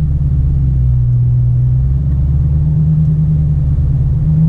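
Supercharged 6.2-litre V8 of a Dodge Challenger Hellcat running steadily while driving, over low road rumble. Its pitch drops about a second in and climbs back over the following seconds.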